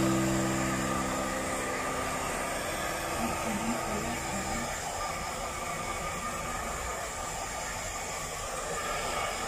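Hand-held hair dryer blowing steadily with a constant rushing hiss. Over it, a background-music chord rings and fades out over the first four or five seconds, with a few soft notes near its end.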